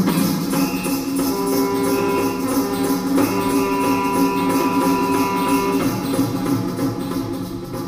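Music played through a Toyota Prius's car audio speakers, heard inside the cabin: long sustained chords from about a second in, with a brief break about three seconds in.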